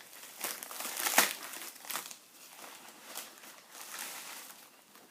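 Packaging of a mailed book being torn and crinkled open by hand: dense crackling and rustling, loudest about a second in, then thinning to softer handling noises.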